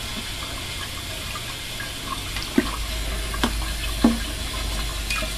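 Water running steadily in a darkroom sink while liquid is poured into a graduated cylinder, with a few light knocks of labware on the tray about two and a half, three and a half and four seconds in.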